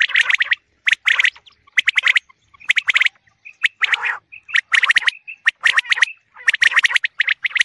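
Chickens pecking grain off hard-packed dirt: bursts of rapid sharp taps, several pecks at a time, with short pauses between the bursts. A few brief soft chirps and a low cluck come from the birds around the middle.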